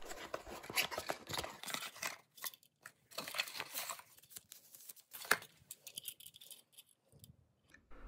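A small cardboard box being opened by hand and a plastic electrical outlet slid out of it. The box's flaps rub and scrape with many small clicks, busiest in the first two seconds, then a few scattered scrapes and one sharp click about five seconds in.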